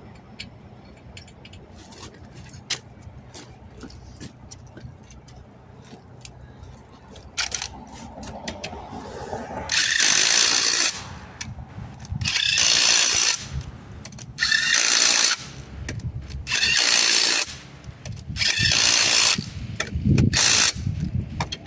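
Lug nuts being run down on a car wheel with a ratchet wrench: faint scattered clicks and handling at first, then, about ten seconds in, a series of loud ratcheting strokes of about a second each, one every two seconds or so.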